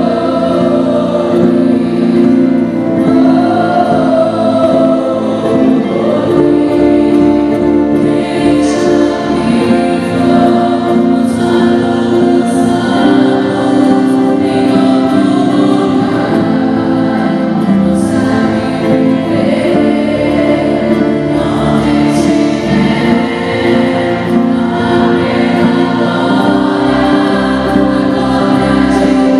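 Women's worship vocal group singing a Portuguese gospel song together, accompanied by acoustic and electric guitars and keyboard, sustained without a break.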